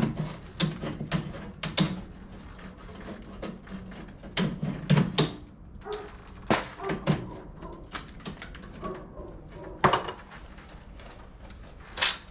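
Irregular sharp clicks and knocks, many of them scattered through, from a handheld tool and wire mesh lath being worked into a patch hole in a stucco ceiling.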